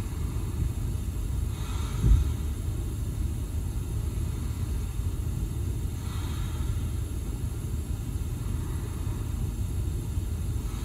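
Steady low background rumble, with one low thump about two seconds in.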